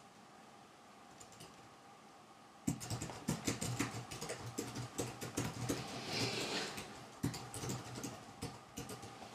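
Libidex latex rubber parade trousers crackling and squeaking as the legs cross and uncross. A run of irregular sharp clicks starts almost three seconds in, with a brief rubbing swish about two thirds of the way through.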